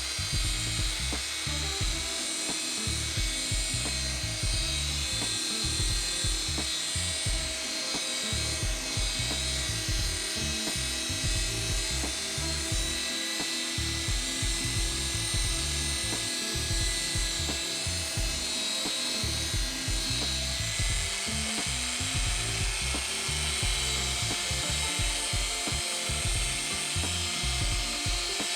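Electric polishing machine running steadily, buffing compound into a hazy plastic part, under background music with a steady beat.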